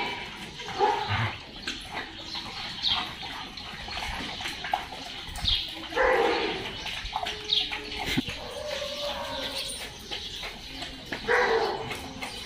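Dog barking and yelping in short calls, a handful of them spaced a few seconds apart.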